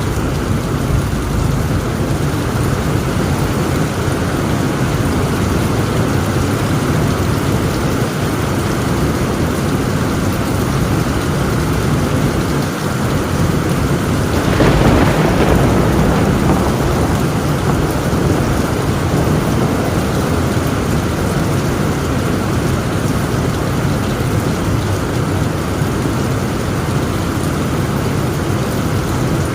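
Torrential rain pouring steadily onto a tin roof, with thunder rumbling underneath. The storm swells to a louder surge about halfway through, then settles back.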